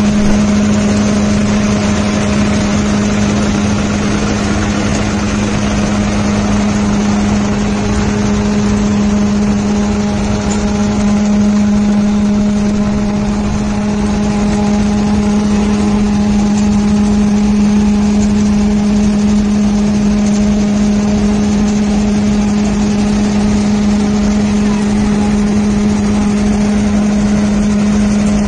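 Tractor-driven groundnut cleaning machine running, its blower and shaking sieve working peanuts: a steady mechanical hum with one strong constant low tone, unchanging throughout.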